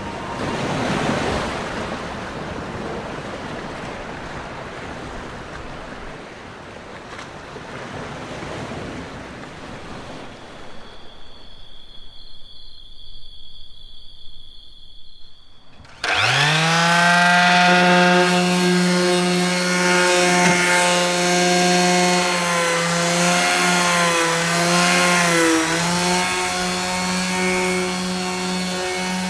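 An electric palm sander starts up suddenly about halfway through. Its pitch rises as it spins up, then it runs with a steady hum and dips briefly in pitch a few times. Before it comes an even hiss, then a quieter stretch with two faint high steady tones.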